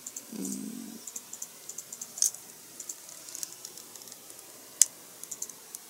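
Small, sharp clicks and taps of plastic model-kit parts being handled and fitted together, with two louder clicks about two seconds in and just before five seconds.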